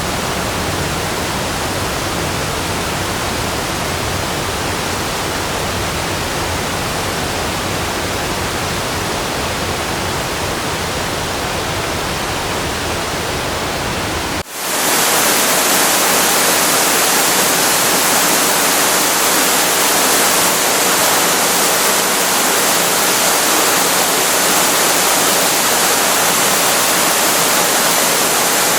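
Waterfall rushing as a steady roar of water noise. About halfway through it cuts abruptly to a different waterfall recording, brighter and hissier with less low rumble.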